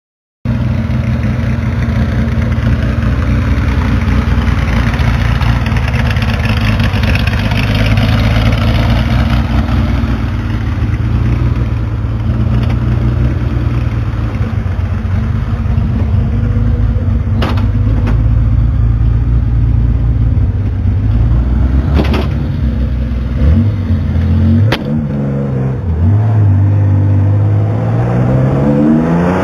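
Porsche 911 R's air-cooled flat-six running at a steady idle, with a few sharp clicks midway. Late on come two quick blips of the throttle, and near the end the revs climb as the car pulls away.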